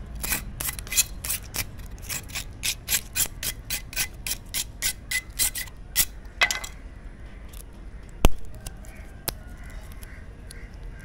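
Knife blade scraping along a coconut leaf midrib, stripping off the leaf, in quick repeated strokes about three to four a second. The strokes stop after about six and a half seconds, followed by a single sharp click a little after eight seconds and a few faint ticks.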